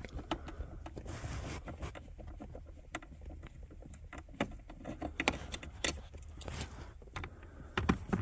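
Irregular light metallic clicks and clinks of hand tools and Torx bolts being worked loose from a car's center console.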